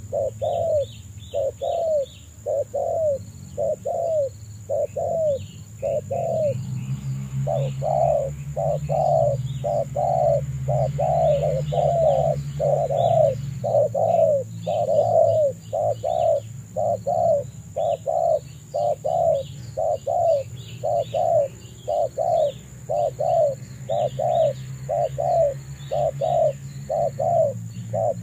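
Spotted dove cooing, a long run of evenly repeated low notes at about one and a half a second, with a short break about six seconds in. Faint high chirps of small birds sound above it.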